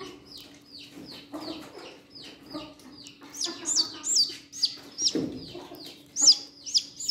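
A young chick peeping in distress: a rapid run of shrill peeps, each falling in pitch, about two to three a second, growing louder from about halfway. The chick is crying out in pain while its crooked toes are taped into a splint.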